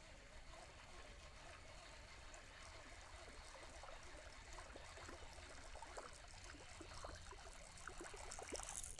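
Faint trickling and lapping of water, with light surface splashes and ticks growing over the last few seconds as a topwater bat lure is worked across the water.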